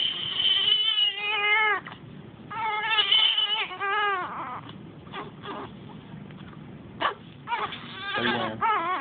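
A premature newborn crying: a run of loud wailing cries in the first half, then a lull of short whimpers, with the crying starting up again near the end.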